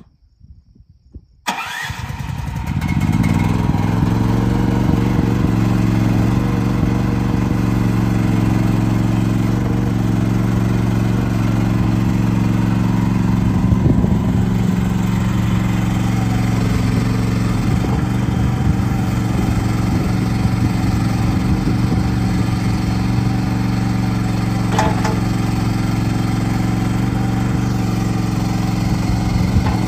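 Mini excavator's small engine starting about a second and a half in, building over a second, then running steadily while the machine is worked.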